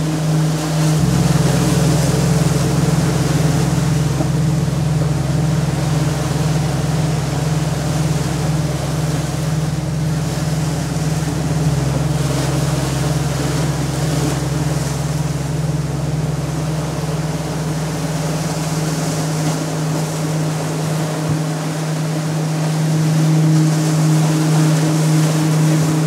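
A steady, low, sustained drone with a higher tone above it, layered over waves washing against rocks. The deepest part of the drone fades out about three quarters of the way through.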